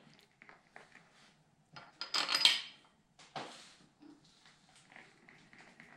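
Steel engine bolts and small metal parts clinking and clattering as they are handled on a tool cart: scattered light clinks, with a louder clatter about two seconds in and another a second later.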